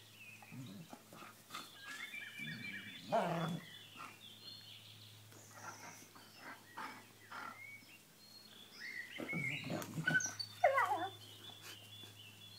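A German Shepherd and a Dobermann puppy vocalising in rough play, in short outbursts: a loud one about three seconds in and a cluster around ten seconds.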